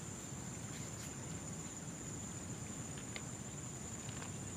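Crickets trilling in one steady high-pitched drone over a low, even background noise, with a few faint ticks.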